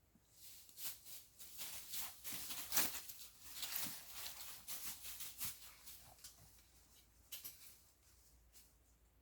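A run of irregular scraping and crunching noises, loudest about three seconds in, dying away after about seven seconds.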